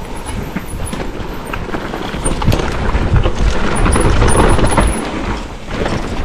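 Mountain bike riding fast down a dirt trail: a loud rumble of tyres and wind on the camera's microphone, with rattles and clicks from the bike. It gets louder about two and a half seconds in and drops briefly near the end.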